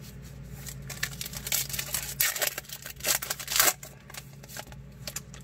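A trading card pack's foil wrapper being torn open and crinkled, with the cards inside clicking and sliding as they are pulled out. The loudest crinkling comes in two spells, near the middle and again about two-thirds of the way in.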